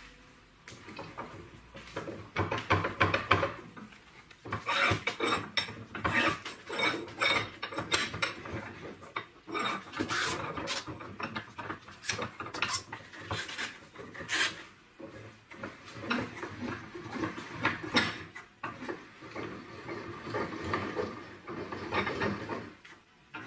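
Handle of a homemade steel bench vise being spun by hand to wind the screw: repeated metal clinks and knocks with scraping and rubbing as the steel bar turns in the screw head.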